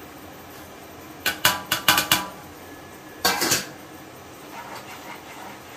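A steel bowl clinking against a cooking pan about five times in quick succession, then one short clatter about a second later.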